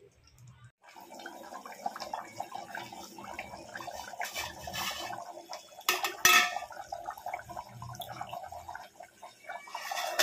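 Curry gravy bubbling and popping in an aluminium pot on the stove. A steel plate lid clinks twice against the pot about six seconds in, then clatters down onto the rim near the end.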